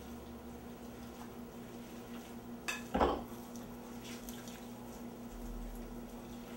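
Hands kneading raw ground meat in a ceramic bowl: a sharp click then a louder knock against the bowl about three seconds in, followed by faint soft mixing sounds, over a steady hum.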